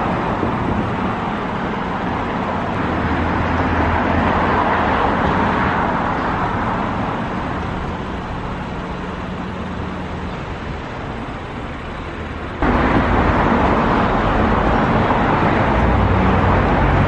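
City street traffic noise, a steady rush of passing cars. It swells as a heavier vehicle goes by about four to six seconds in, and jumps abruptly louder about three-quarters of the way through.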